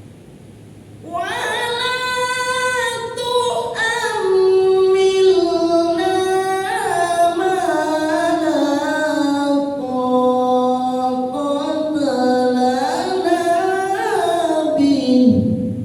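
A Quran reciter's voice chanting one long, unaccompanied melodic phrase with ornate turns and glides in pitch, beginning about a second in and ending on a falling note near the end.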